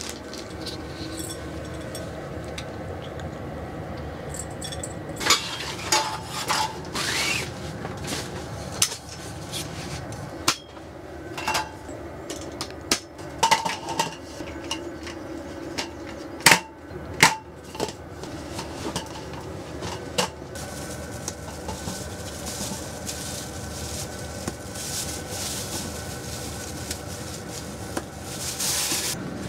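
Wooden folding camp table being unfolded and set up, a series of sharp knocks and clatters. Near the end a plastic bin liner rustles as it is fitted into a bin.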